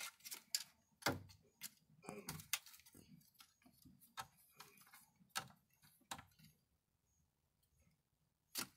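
Light, irregular clicks and scratches of a kitten's paws and claws on wooden boards as it bats at loose string, several a second, dying away about two-thirds through, with one more click near the end.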